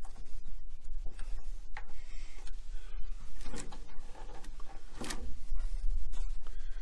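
Scattered clicks, knocks and rustling of hands working the plastic drain fitting and wiring of an open tankless water heater, over a steady low hum.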